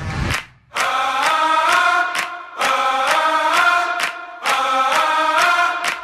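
Background music: a held, slightly wavering vocal melody in short chant-like phrases with no bass, broken by brief pauses and sharp clicks.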